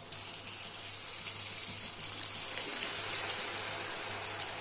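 Corn-flour-coated chickpeas deep-frying in hot oil: a steady sizzle that jumps up suddenly at the start as they drop into the oil, with faint crackling throughout.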